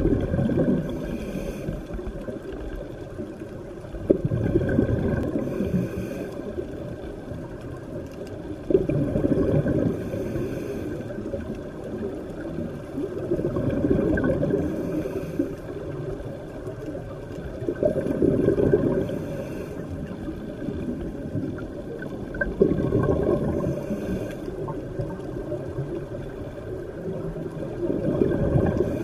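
Scuba diver breathing through a regulator underwater: a brief hiss on each inhale, then a rush of exhaled bubbles, repeating about every four to five seconds.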